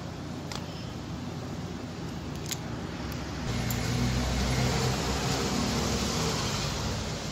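Steady background hiss with a couple of light clicks, then a motor vehicle's engine rumble that swells from about halfway through and fades near the end.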